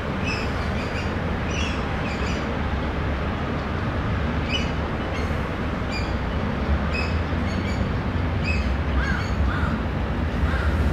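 Birds calling: short, high calls repeated about one or two a second, with a few lower calls near the end, over a steady low rumble.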